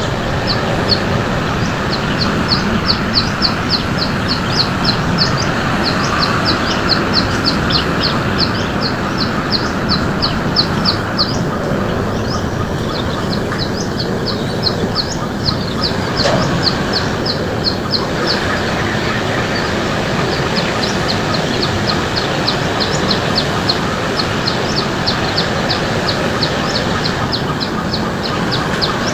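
A bird repeating a short, high call about four times a second, in long runs with brief pauses, over a steady rushing background noise.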